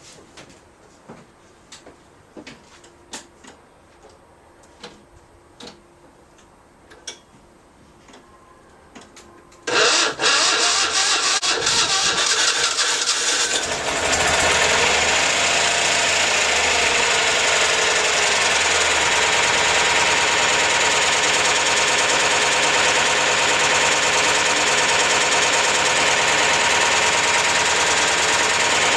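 A few faint clicks and knocks, then about ten seconds in the Citroen Ami 6's air-cooled flat-twin engine is cranked and fires. It settles after a few seconds into a steady idle, just after its oil and fan belt have been changed.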